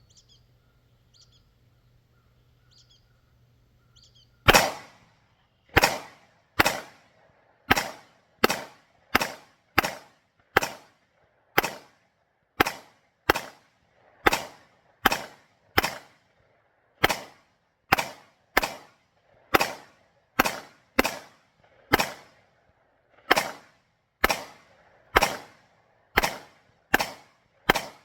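Semi-automatic gunfire from a CZ Scorpion: a steady string of about thirty shots, roughly one every half second to second, each echoing. It starts after a few quiet seconds with faint bird chirps.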